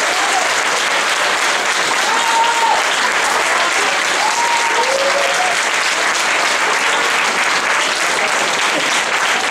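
Audience clapping steadily, with a few brief calls heard over it.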